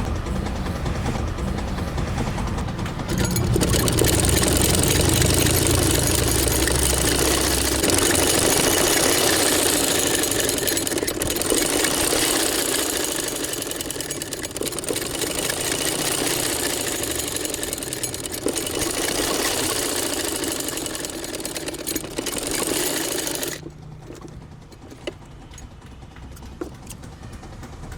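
A workshop power tool running steadily with a loud rushing noise for about twenty seconds, then cutting off suddenly near the end. A low hum runs under it for the first several seconds.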